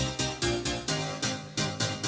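Background music with quick, evenly repeated notes, about four a second.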